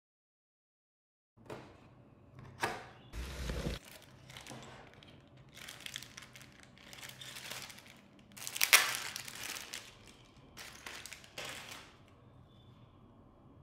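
Packaging of a brick building set being handled: a series of crinkling and tearing rustles, with a low thump about three seconds in and the loudest rustle about nine seconds in, then only faint room tone near the end.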